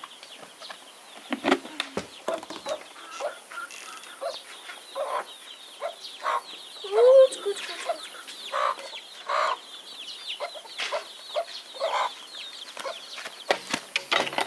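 Domestic chickens clucking, a run of short calls one after another, with one louder rising-and-falling call about seven seconds in. A steady high chirring runs underneath.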